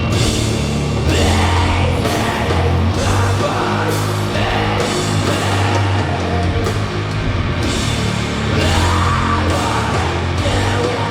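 Live doom metal band playing a slow, heavy riff: distorted guitars over deep bass notes held for a second or two at a time, with drums.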